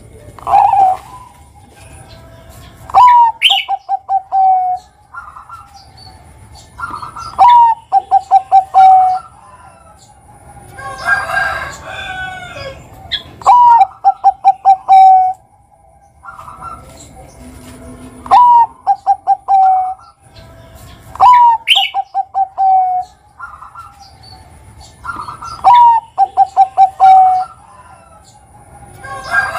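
Zebra dove (perkutut, Bangkok type) singing its manggung song about six times. Each phrase is a sharp opening note followed by a quick run of about five short coos.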